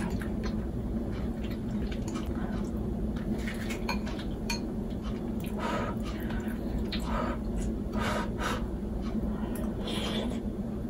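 Metal fork clinking and scraping against a ceramic bowl of pasta, with close-up chewing, over a steady low hum.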